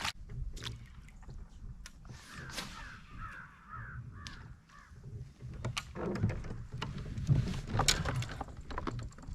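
Knocks, clicks and rattles of handling on a fishing kayak, busiest and loudest from about six to eight seconds in. A bird calls several times in quick succession about two to four seconds in.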